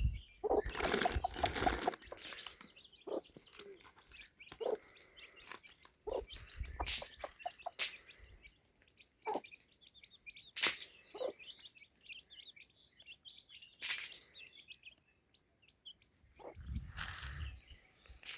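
Birds chirping, with a dozen or so scattered sharp cracks and knocks, and two louder bursts of rustling noise, about a second in and near the end.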